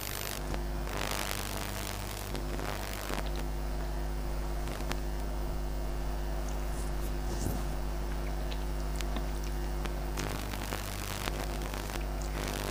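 A steady low electrical hum under faint soft sounds of fingers mixing rice and fried water spinach on a plate.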